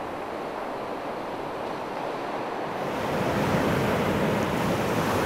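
Ocean surf breaking and washing up a beach, a steady rush that swells louder about three seconds in.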